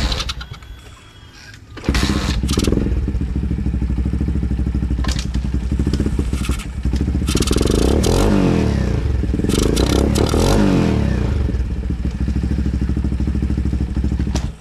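Turbocharged pit bike engine being started: a short burst, then it catches about two seconds in and runs. It is revved a few times, pitch rising and falling, between about seven and eleven seconds in, then cuts off suddenly at the end.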